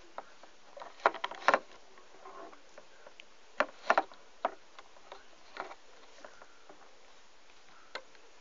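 Light clicks and taps of a plastic loom and crochet hook being handled as rubber bands are placed on the pegs. The clicks come in a quick cluster about a second in and another around four seconds in, then a few scattered ones.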